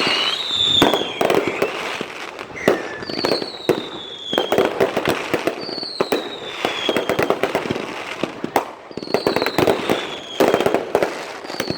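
Firecrackers going off in rapid crackling strings. A high whistle that falls in pitch comes back about every three seconds.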